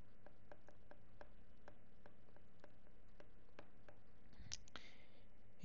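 Stylus tip tapping and ticking on a tablet's glass screen during handwriting: a rapid, uneven run of faint clicks, several a second, over a low steady hum, with a brief soft hiss near the end.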